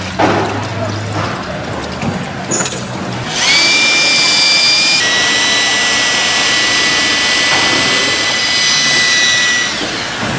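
Electric drill fitted with a paddle mixer whining as it stirs frying batter in a plastic bucket. It starts about a third of the way in, steps slightly lower in pitch a moment later, runs steadily, and stops shortly before the end.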